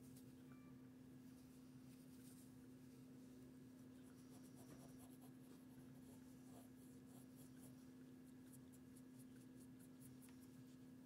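Faint, quick scratchy rubbing strokes of cleaning a 1941 Argus AA camera, starting about a third of the way in and coming thicker toward the end, over a steady low electrical hum.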